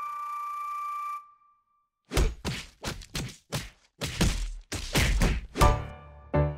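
A held musical note fades out about a second in, and after a short silence comes a fast run of about a dozen heavy thuds. Pitched notes of the film's score come back in near the end.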